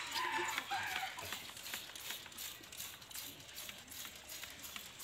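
A brief chicken call in the first second, over faint scattered clicks and rustles.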